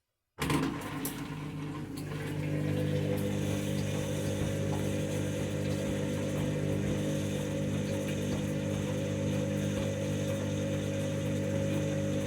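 Washing machine at the end of its main wash, starting to drain: a steady machine hum cuts in suddenly about half a second in and holds at an even pitch, with no rising spin-up.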